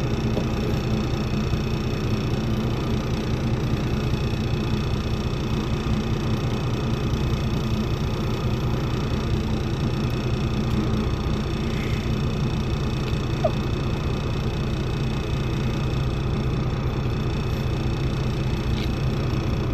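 An engine idling steadily: a constant low rumble with a steady hum above it that does not change.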